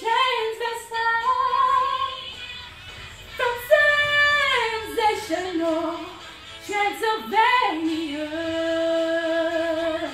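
A woman singing, drawing out long held notes that slide up and down in pitch, with one long steady note near the end.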